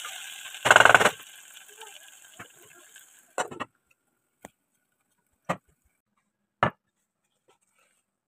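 Potatoes and tomatoes sizzling in a pot as they are stirred with a spatula, with a loud scraping burst about a second in. The frying sound stops a little past three seconds in, followed by a few short sharp knocks spaced about a second apart.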